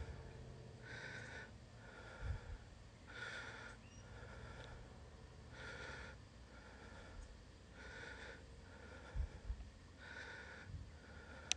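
A person breathing heavily close to the microphone in a steady rhythm, one full breath about every two and a half seconds. A few low thumps come in between.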